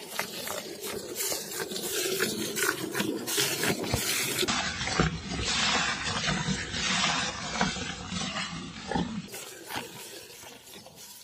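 Cow being milked by hand: repeated squirts of milk hitting the frothy milk in a steel bucket, in a quick alternating rhythm. A rough low noise sits under it through the middle seconds.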